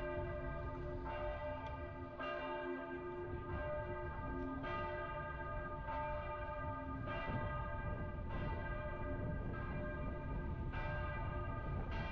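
Church bells ringing, a new stroke about every 1.2 seconds, each ringing on into the next, over a steady low rumble of street noise.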